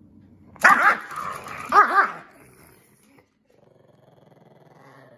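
A small dog, a Pekingese, barks in two quick pairs, then gives a low, rumbling growl near the end, grumpy rather than ready to play.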